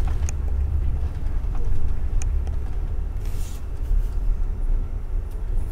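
Steady low engine and road rumble heard from inside a moving long-distance coach, with a few faint clicks and a short hiss about three seconds in.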